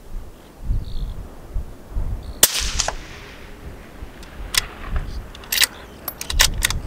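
A single shot from a Ruger American Gen II .223 Rem bolt-action rifle about two and a half seconds in, with a brief ring-out. It is followed near the end by several sharp metallic clicks, the bolt being worked, while wind buffets the microphone throughout.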